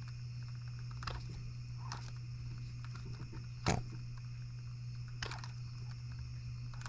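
Small model Atkinson-cycle engine turned over slowly by hand, unfuelled, its valve gear and linkage giving a few light clicks about one to two seconds apart, the loudest near the middle, over a steady low hum.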